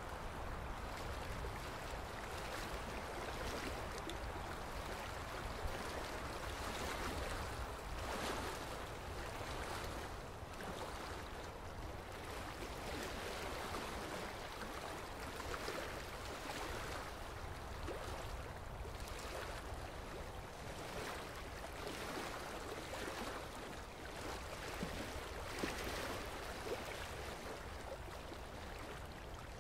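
Steady hiss of dental suction and water spray during tartar scaling, with a few faint clicks.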